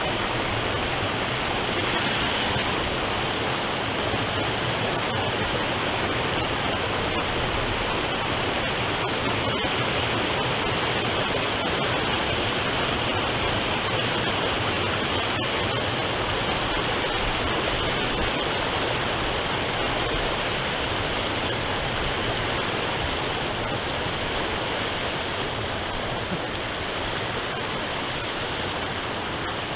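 River rapids rushing over rocks: a steady, loud roar of whitewater.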